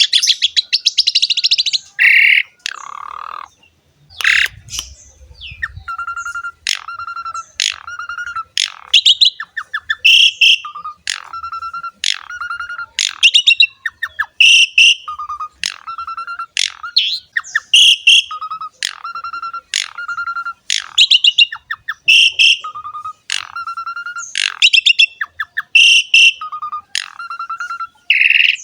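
Asian pied starling (jalak suren) singing. It repeats a short phrase over and over, a lower note followed by a higher, rich note, about every second and a half, after a buzzy trill at the start.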